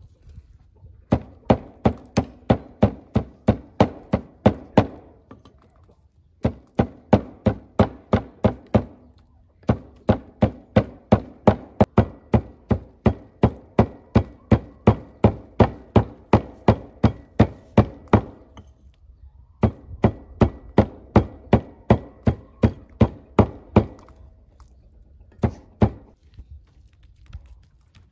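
Steady chopping on a wooden surface, sharp strokes about three a second in runs of several seconds broken by short pauses.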